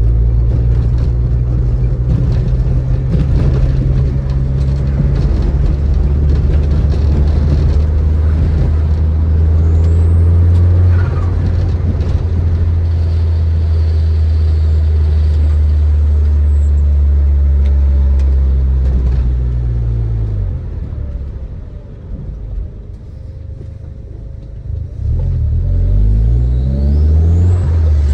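Turbocharged Audi A3 1.8T 20V inline-four with a 3-inch stainless exhaust, driving: a steady low exhaust drone while cruising. About 20 s in it drops off and goes quieter as the throttle is lifted, then picks up again near the end, rising in pitch as the car accelerates.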